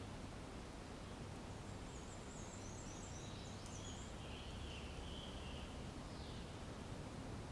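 Faint outdoor ambience: a steady hiss and low hum, with a cluster of short, high-pitched animal chirps and trills from about two seconds in.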